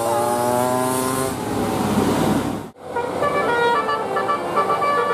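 Indonesian 'telolet' multi-tone bus horns playing. A held chord of several horn tones fades into engine and street noise, then after an abrupt cut a fast run of short, changing horn notes plays a melody.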